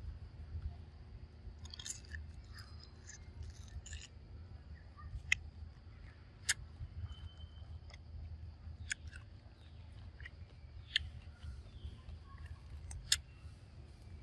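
A monkey biting into a firm green mango and chewing: a burst of crunching about two seconds in, then single sharp crisp bites every one to two seconds.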